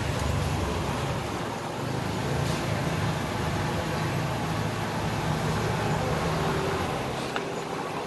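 Steady low background rumble, with a faint click about seven seconds in.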